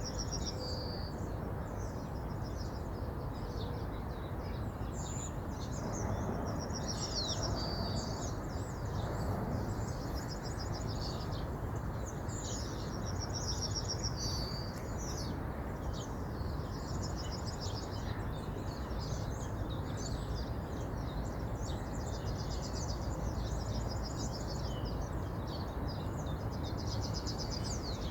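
Steady rush of river water, with songbirds chirping and singing high, rapid trills over it throughout.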